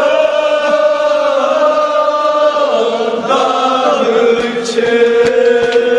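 Men's voices chanting a Kashmiri marsiya lament together in long, drawn-out notes, the pitch dipping about halfway through before the chant resumes.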